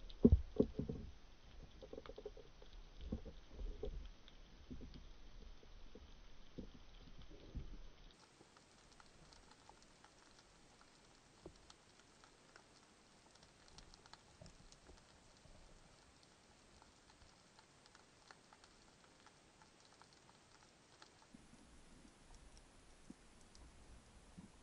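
Underwater sound from a diving action camera: a run of dull, low knocks and bumps in the first eight seconds, the loudest just after the start. After a cut about eight seconds in, only a faint, steady crackle of fine clicks remains.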